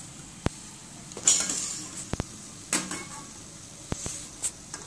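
Metal kitchen utensils clinking and scraping against a steel frying pan as fried chakli are lifted out: a few sharp clicks and several short scrapes over a faint steady sizzle of hot oil.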